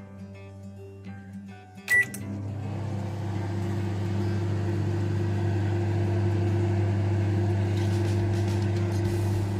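Microwave oven switched on: a click and a short beep about two seconds in, then the oven running with a steady low hum.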